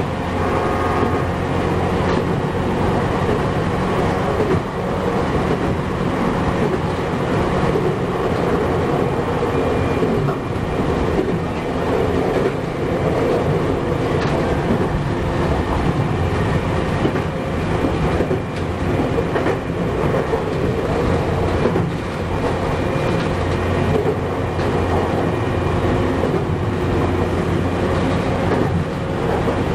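Chichibu Railway 7500 series electric train running at speed, heard from inside the car at the cab: a steady rumble of wheels on rail with occasional clickety-clack over rail joints.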